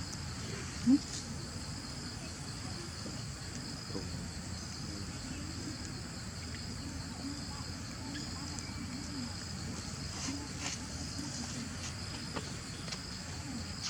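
Insects chirring steadily in a high, evenly pulsing drone, over a faint low murmur. A short, louder rising sound comes about a second in.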